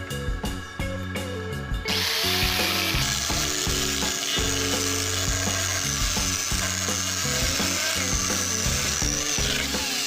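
Angle grinder fitted with a chainsaw attachment, running and sawing through wood: a dense high noise with a wavering whine starts about two seconds in. Background music with a steady beat plays throughout.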